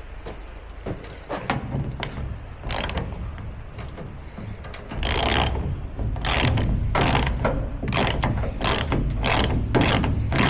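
A metal ratcheting mechanism clicks in even strokes, about two to three a second, starting about five seconds in, over a steady low rumble.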